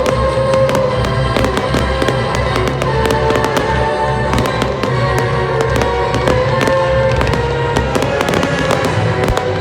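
Display fireworks bursting and crackling in rapid succession, many reports overlapping, over music played through loudspeakers.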